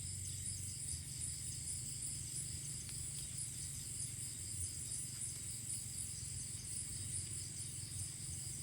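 Insect chorus in the woods: a steady, high, pulsing trill repeating a few times a second, over a low steady rumble.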